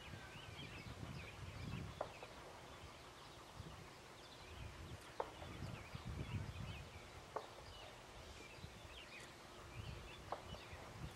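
Faint outdoor birdsong: many small chirps, with a short sharp note every two or three seconds, over an uneven low rumble.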